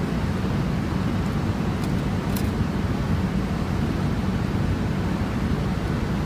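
Steady low mechanical rumble with an even hiss above it, and a faint click a little over two seconds in.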